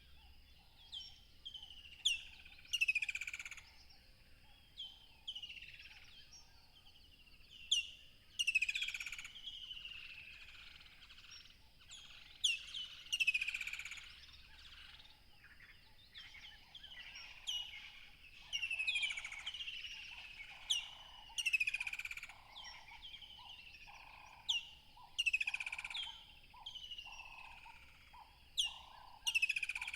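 Birds calling: a run of sharp chirps that each sweep quickly down in pitch, repeating and overlapping every second or so, over a faint steady high tone.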